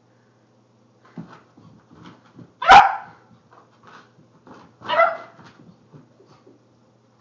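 Italian Greyhound barking twice, two sharp barks about two seconds apart, with softer short sounds between them.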